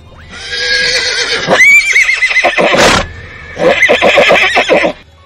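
A horse whinnying loudly twice: a long neigh with a quavering pitch, then a second neigh starting about three and a half seconds in.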